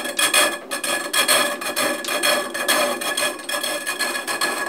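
Metal bar held against a treadle-turned sandstone grindstone, scraping harshly with a rapid rattling chatter as its square-ground end cuts down the bumps of the out-of-true wheel.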